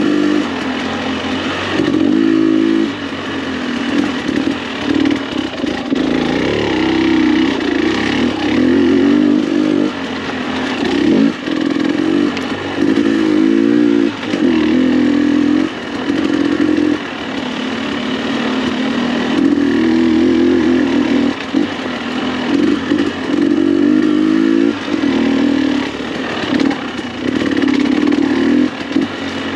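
2021 KTM 300 XC-W TPI two-stroke dirt bike engine, exhaust through an FMF spark-arrestor muffler, under constantly changing throttle. The revs rise and fall all the time, with short throttle-offs every few seconds as the bike is ridden through tight trail.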